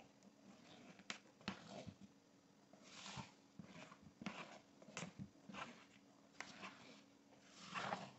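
Faint, irregular soft swishes and squelches of airy meringue and cake batter being folded together in a mixing bowl, a stroke every second or so.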